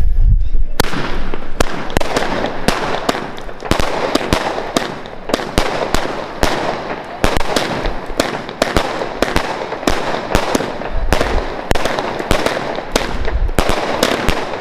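A 25-shot Aquarius consumer fireworks cake firing. Starting about a second in, it fires a quick, steady run of shots and aerial bursts, two or three a second.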